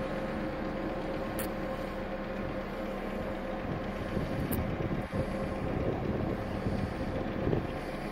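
Boat engine running steadily: a low rumbling drone with a constant hum.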